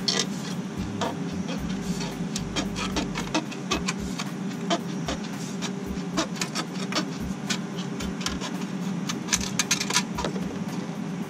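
Aviation tin snips cutting and trimming the edge of galvanized sheet-metal smoke pipe: a run of irregular sharp metallic snips and clicks, over a steady low hum.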